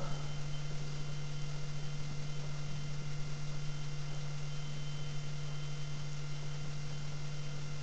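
Steady low electrical hum with a faint hiss behind it: room tone, with no shaking or rattling.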